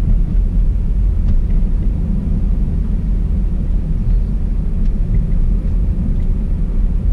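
Steady low rumble of a moving car, road and engine noise heard inside the cabin.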